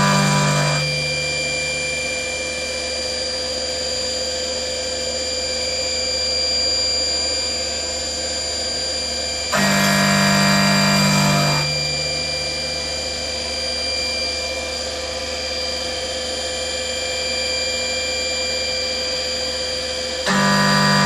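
CNC milling machine cutting metal with a carbide end mill, the spindle giving a steady whine. A louder, pitched hum of the cut rises for about two seconds about ten seconds in and again at the end.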